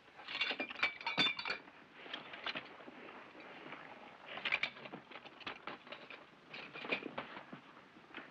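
Small hard objects clinking and rattling as personal belongings are picked up and handled on a desk: clusters of sharp clinks, loudest in the first second or so, then again midway and near the end.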